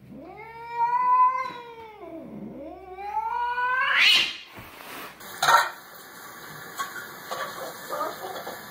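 Domestic cat meowing twice in long, drawn-out calls. The first rises, holds and falls; the second climbs steadily to a high end. Then comes a single sharp knock and some faint tapping.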